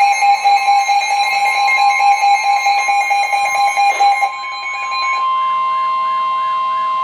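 Emergency Alert System attention signal: a loud, steady two-tone alarm. About four seconds in there is a click, and the lower tone drops out. A warbling tone that rises and falls about three times a second joins the remaining steady tone.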